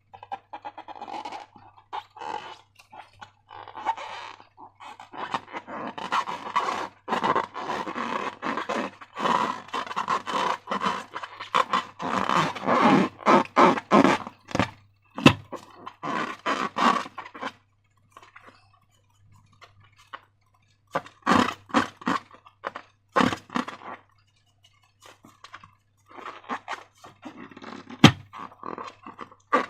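Slime being squeezed and worked by hand with rubber balloons: a sticky, crackling squelch of many quick small pops, coming in runs with short pauses and a couple of sharp clicks.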